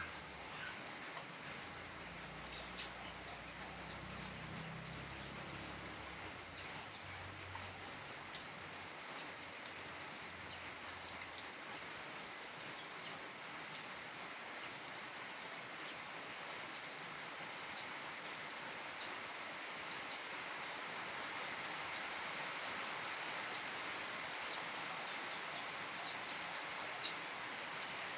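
Steady rain falling, an even hiss of drops. A bird gives short high chirps about once a second through much of it, and a faint low hum sits under the rain in the first ten seconds or so.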